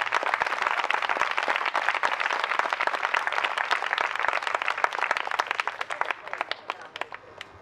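Audience applauding with dense hand clapping that thins out about six seconds in, leaving a few scattered claps before it stops.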